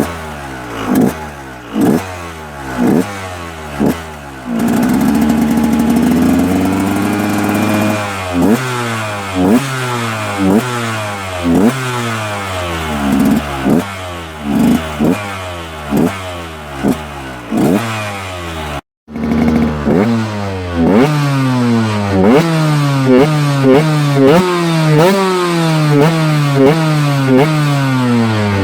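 2010 KTM EXC 125's two-stroke single-cylinder engine with a Doma exhaust, revved in repeated throttle blips, each one rising sharply in pitch and dropping back to idle, with a longer held rev about five seconds in. After a brief cut to silence near the end, the blips come faster, about two a second.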